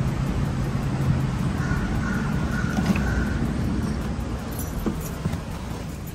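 Steady traffic and street noise with a low hum underneath. A faint, broken high tone comes and goes about two to three seconds in.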